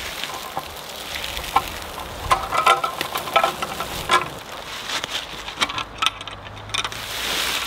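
A heavy roll of woven wire fencing being dragged and rolled over dry fallen leaves: the leaves crackle and crunch under it and underfoot, with light metallic clinks from the wire mesh in the middle.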